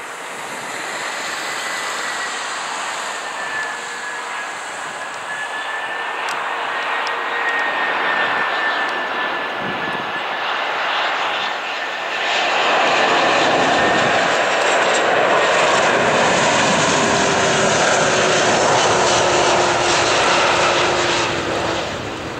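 Four-engined Airbus A340 airliner's jet engines on final approach, a steady rushing noise with a high whine and a lower hum that slowly falls in pitch. It grows louder about halfway through as the plane comes closest, and eases off near the end as it flares over the runway.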